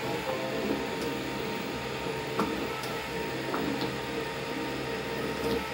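Velleman Vertex K8400 3D printer printing: its stepper motors whir in quickly changing tones as the print head moves back and forth, over the steady hum of its cooling fan, with a few light ticks.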